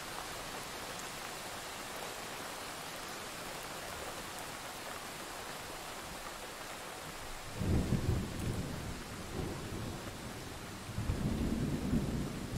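Steady rain hissing, with thunder rumbling low twice: a roll beginning a little past halfway and another near the end.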